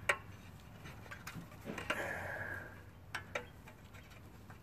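A few light clicks and ticks as a small coil return spring is worked off an engine's throttle linkage by hand, with a brief scrape about two seconds in.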